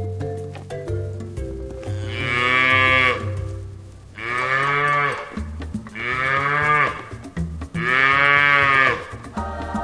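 Cow mooing four times, each a loud call of about a second that rises and falls in pitch, over background music.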